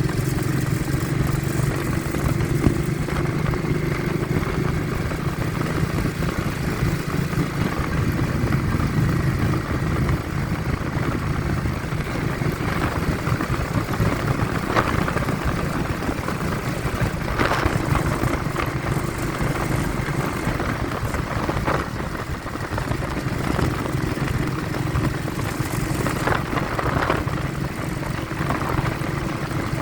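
A vehicle's engine running steadily on the move, with wind buffeting the phone's microphone.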